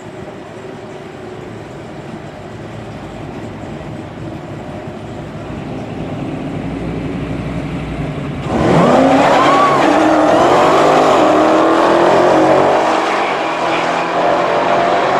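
Dodge Challenger SRT Demon's supercharged V8 and a Chevrolet Chevelle SS idling at the drag-strip start line, the rumble slowly building. About eight and a half seconds in, both launch at full throttle. The engine notes climb sharply in pitch, drop back at a gear change and climb again as the cars accelerate away.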